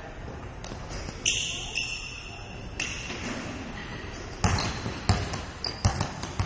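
Sneakers squeaking on a gym floor, once about a second in and again near three seconds, then a basketball dribbled hard on the floor, with four bounces in the last two seconds.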